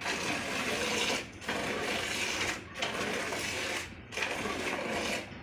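Milk squirting from a cow's teats into a pail during hand milking: rhythmic hissing spurts that break off briefly about every second and a half.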